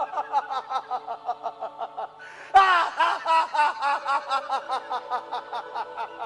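A stage actor's long staccato laugh, 'ha-ha-ha' about five times a second, getting louder about two and a half seconds in, over a steady held background tone.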